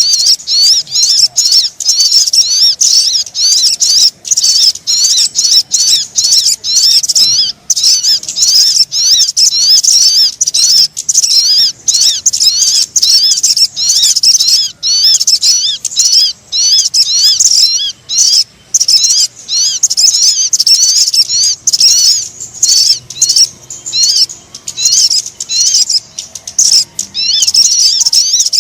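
Recorded sogon birdsong used as a lure call: loud, rapid, high-pitched twittering chirps, continuous with many brief gaps.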